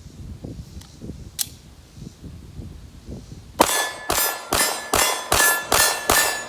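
Seven 9mm shots from a Palmetto State Armory Dagger pistol fired in a quick even string, about two and a half a second, starting a little past halfway, each with a metallic ring. The mixed brass- and aluminum-cased rounds all cycle with no malfunction.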